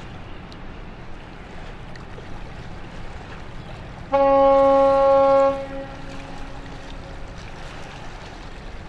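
A ship's horn sounds one steady blast about four seconds in, lasting about a second and a half, then rings on more faintly for another second or two. Steady wind and water noise lies underneath.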